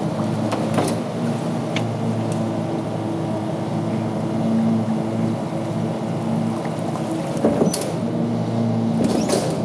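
Rear-load garbage truck's hydraulic packer cycling: the Mack CV713's diesel engine and hydraulic pump running steadily under load, with a few sharp metal clanks from the packer mechanism, the loudest near the end.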